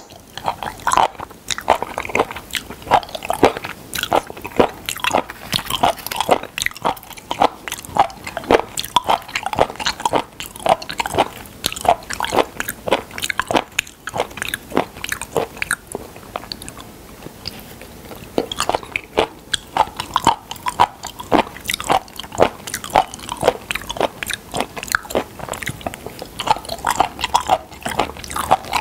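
A person chewing raw sliced seafood (sashimi) close to the microphone: a steady run of mouth and chewing sounds, a few a second.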